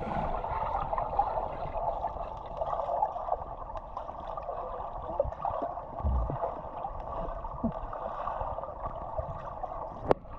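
Waterfall water running into a rock pool: a steady, even rushing and gurgling.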